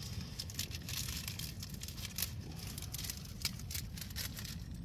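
Plastic bags and wrappers crinkling and rustling in quick, irregular crackles as someone rummages through a bag.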